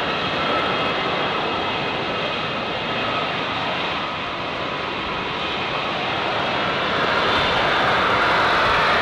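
Boeing C-17 Globemaster III's four Pratt & Whitney F117-PW-100 turbofan engines at full takeoff power as the aircraft lifts off and climbs away: a steady jet roar with a high whine, growing louder near the end.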